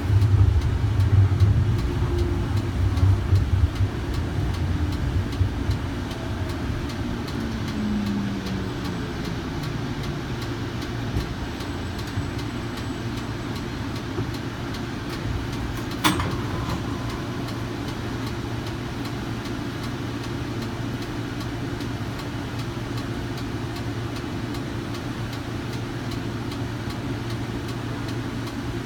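Kinki Sharyo light rail vehicle's IGBT-VVVF traction drive whining down in pitch as the car brakes to a stop, after a low running rumble. A steady hum follows while the car stands, with one sharp click about halfway through.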